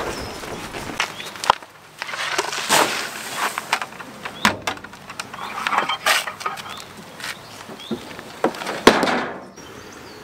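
Footsteps on a wooden pontoon and the clanking of a metal bucket of boiler ash being carried and tipped into a metal skip, heard as an irregular string of sharp knocks, clanks and scrapes.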